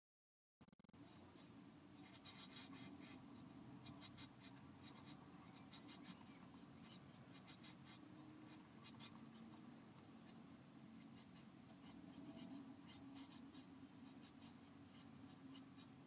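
Faint scratching and rustling of blue tit chicks stirring and flapping their wings against the nest material, in quick irregular clusters of crackles over a steady low hum.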